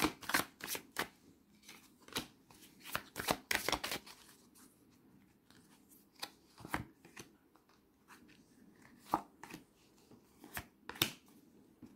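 A deck of oracle cards being shuffled by hand: a quick run of papery card clicks for the first few seconds, then sparser single card snaps as cards are drawn and laid down.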